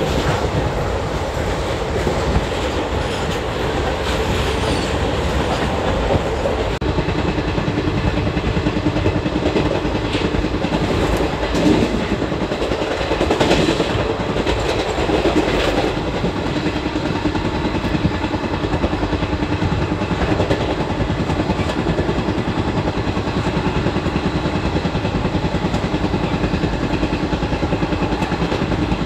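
ICF passenger coach running at speed, heard from its open doorway: steady wheel-on-rail rumble with clickety-clack over the rail joints and rushing air. For the first several seconds a freight train of covered wagons passes close alongside on the next track, adding its own rolling clatter.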